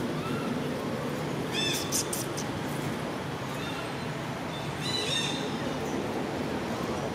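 Baby macaque crying in short, high calls that rise and fall in pitch, loudest in a cluster about two seconds in and again about five seconds in.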